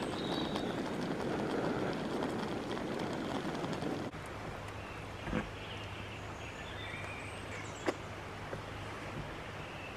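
A steady rushing noise for the first four seconds. Then a metal spork clinks twice against a metal camping pot during eating, with faint bird chirps.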